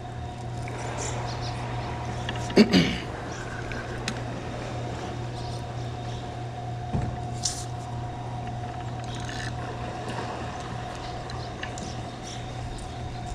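Steady rush of fast river current below a spillway, with a constant low hum under it and one short louder sound about two and a half seconds in.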